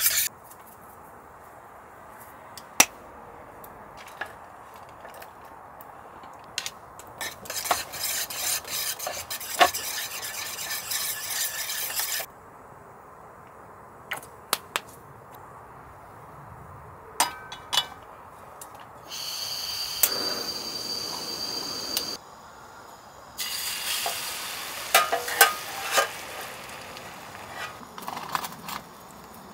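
Cooking sounds in short cuts: utensils clinking and scraping against cookware and dishes, with separate sharp knocks. About two-thirds of the way through there are a few seconds of steady hiss.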